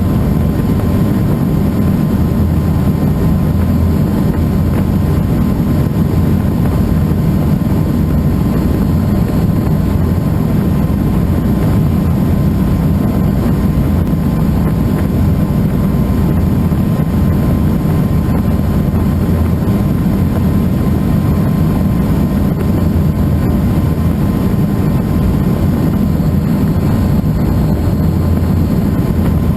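Helicycle kit helicopter in flight, heard from inside the cockpit: the steady, loud drone of the main rotor and its Solar T62T-32 turbine engine, with a thin steady whine above it.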